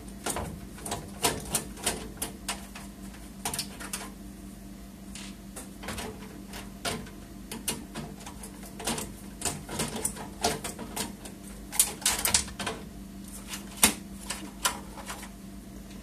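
Irregular light clicks and ticks of a screwdriver and small metal screws as the two screws holding a graphics card's bracket are worked out of a PC case, some clicks coming in quick clusters.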